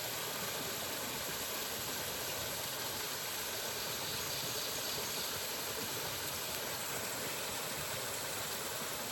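A steady, even hiss with no tone or rhythm in it, cut off abruptly.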